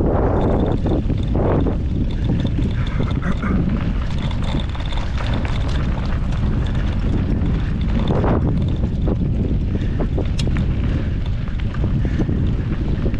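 Wind buffeting a handlebar-mounted action camera's microphone during a mountain-bike ride, over a steady low rumble from the tyres on the trail. Scattered sharp clicks and knocks from the bike run through it, thickest near the end.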